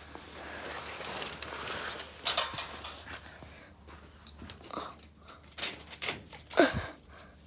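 Fabric rustling, with a few light crackles and knocks as curtains are handled. A louder knock comes near the end.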